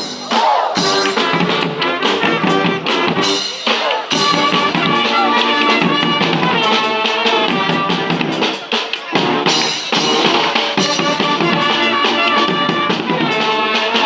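Brass band playing a tune, with horns carrying the melody over drums.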